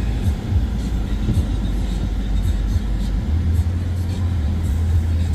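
A Mercedes-Benz C300 4Matic driving on a snowy road: a steady low rumble of engine and tyre noise. About three seconds in, the low drone rises slightly in pitch and grows stronger.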